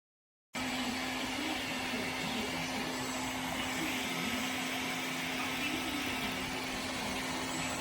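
Hair dryer running steadily through a soft bonnet hood attachment: an even blowing rush with a steady low hum from the motor, starting abruptly about half a second in.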